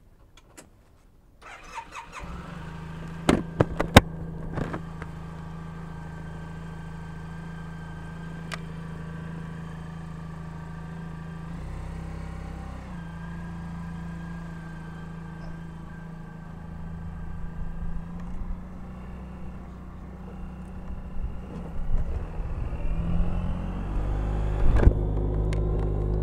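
Suzuki Burgman scooter engine being started, catching about two seconds in and then idling steadily. A few sharp knocks come shortly after it starts. In the last several seconds the engine gets louder and more uneven as the scooter pulls away and rides off.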